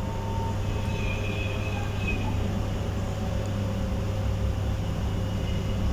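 Steady low mechanical hum with a faint hiss, unbroken and even throughout.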